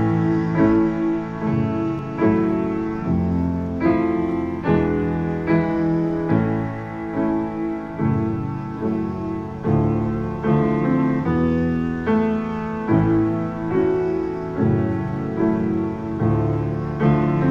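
Solo piano playing the song's introduction, chords struck steadily about once a second, with no voice yet.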